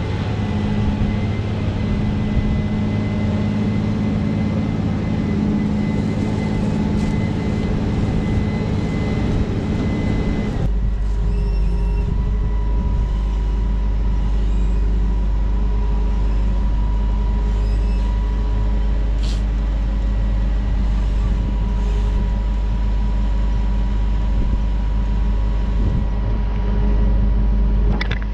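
Engine of heavy farm machinery running steadily. About a third of the way in the sound changes abruptly to a deeper, heavier rumble with a steady hum over it.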